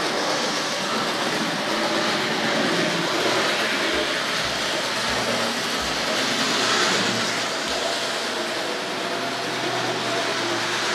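Tri-ang Blue Pullman model diesel train running steadily along the track, its motor bogie humming and its wheels rattling on the rails, with a few dull bumps about halfway through.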